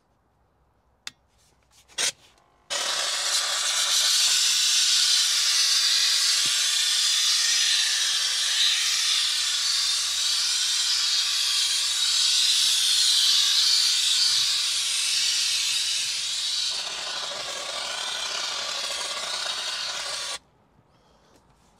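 Kärcher SC 4 EasyFix steam cleaner jetting steam through its cloth-covered nozzle onto a steering wheel: a steady hiss that starts about three seconds in after a couple of soft clicks, dips a little near the end, then cuts off suddenly.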